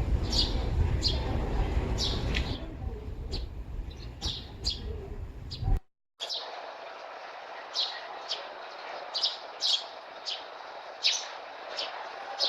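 Sparrows chirping, short single chirps repeating about once or twice a second. For the first six seconds they sit over a low rumble, which cuts off suddenly, leaving the chirps over a lighter steady background.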